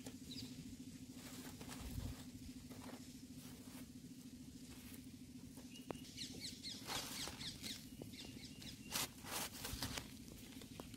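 Faint rustling and crackling of a hand scooping crushed dried chilli flakes and masala paste on a banana leaf, with short sharp crackles clustered from about the middle on. A faint steady hum runs underneath.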